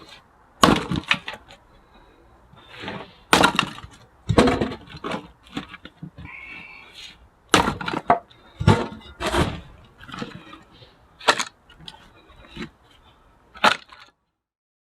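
Axe chopping and splitting firewood: a string of about eight sharp cracking blows, spaced a second or two apart.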